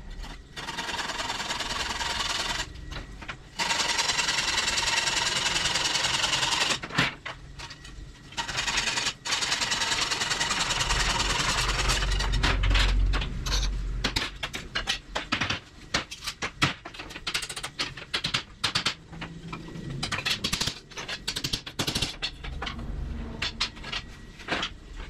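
A power tool with a fast repetitive action, running in long stretches of a few seconds with brief pauses, then in short start-stop bursts from about halfway through.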